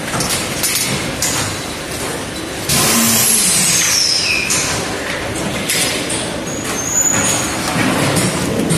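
DZ-1000 continuous belt vacuum packaging machine running with a steady mechanical noise. About three seconds in comes a sudden, louder hiss of air that lasts about two seconds.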